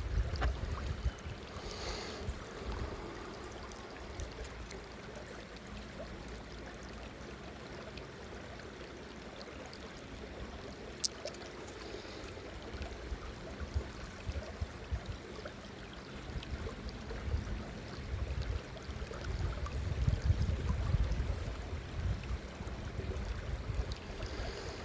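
Waterfall stream water running steadily, with low rumbles near the start and through the last few seconds and a single sharp click about eleven seconds in.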